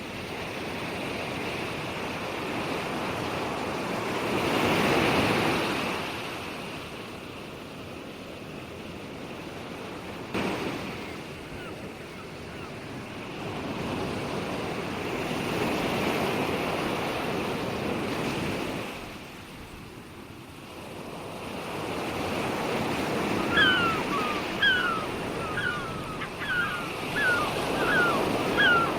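Ocean waves breaking and washing back in slow surges that swell and fade. A bird calls in a quick series of short falling chirps over the last few seconds, and a single sharp click is heard about ten seconds in.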